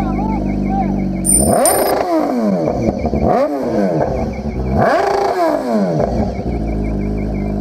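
BMW S1000R's inline-four engine idling, then revved hard several times in a row, each rev climbing quickly and dropping back, before settling back to a steady idle.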